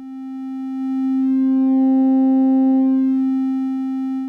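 Sawtooth wave from an Instruō Eurorack oscillator holding one steady note through the Moog Werkstatt-01's wide-open ladder filter. Its volume is turned up, swelling over about two seconds and easing off a little near the end, and its timbre changes a little as it gets louder, which the builder thinks is the filter saturating from the 2x gain on the final mix out.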